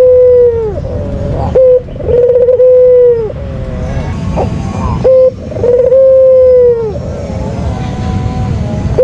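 White ringneck dove cooing loudly: the tail of one long coo, then twice more its two-part call, a short note followed by a long, level coo that drops in pitch at the end. A steady low rumble runs underneath.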